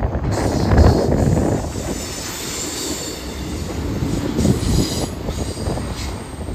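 Double-stack intermodal freight cars rolling past with a steady rumble, and a thin high wheel squeal over the first few seconds.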